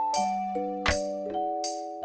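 Background music: a bell-like melody of held notes over a steady beat, with a sharp hit about every three-quarters of a second.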